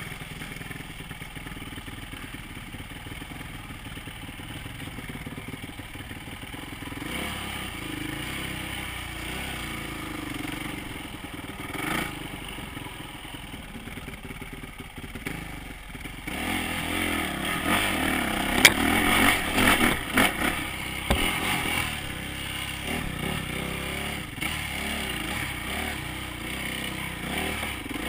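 Yamaha dirt bike engine running at low revs, then louder and working harder from about sixteen seconds in. Clatter and a few sharp knocks come from the bike going over rough trail.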